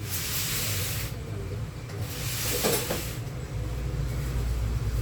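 Two hissing sprays of about a second each, one at the start and one about two seconds in, from a spray can cleaning the fan's housing.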